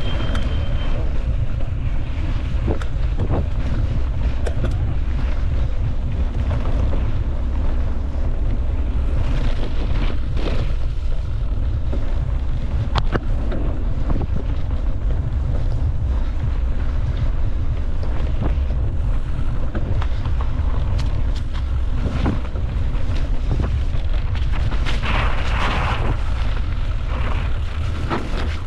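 Wind buffeting the microphone in a steady low rumble, with scattered short clicks and knocks, as from a camera riding along on a mountain bike over rough trail.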